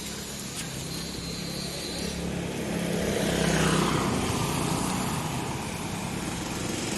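A motor vehicle's engine passing close by, growing louder to a peak about halfway through and then fading, over a steady hiss.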